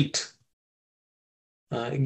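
A man's speaking voice trailing off just after the start, then about a second and a half of dead silence, with speech starting again near the end.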